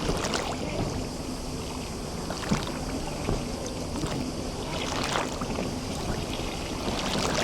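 Small sea waves lapping and splashing at the shore of a bay, with louder splashes about five seconds in and near the end.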